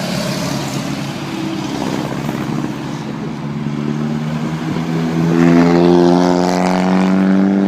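Vintage car's engine accelerating, its note rising steadily in pitch and growing louder in the second half.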